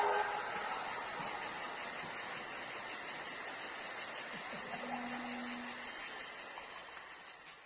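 Night-time ambience of insects chirping in a rapid, regular pulse over a steady hiss, with a brief low tone about five seconds in, fading out near the end.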